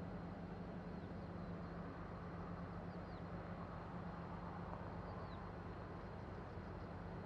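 Steady low hum, even and unchanging, with a few faint short high chirps above it.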